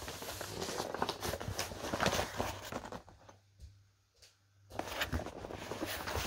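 Cardboard box being handled and pried open by hand: irregular scraping, rustling and knocking of cardboard, broken by a quiet pause of about a second and a half partway through.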